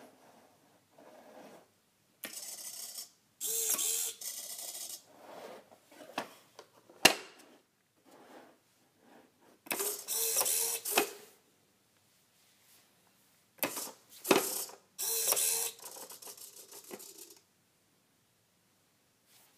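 Small hobby servo motors of a homemade useless machine whir in four short bursts as it opens its lid and pushes its toggle switch back. Between the bursts come a few sharp single clicks from the switch and the wooden lid.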